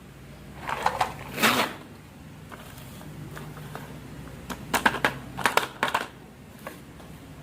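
Marbles rolling and clacking along a wooden marble run: a short rattle about a second in, then a quick run of sharp wooden clicks a little past halfway.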